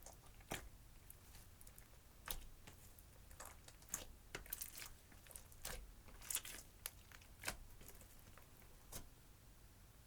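Clear slime mixed with crushed eyeshadow being handled by hand, giving faint, irregular clicks and crackles, about one every second.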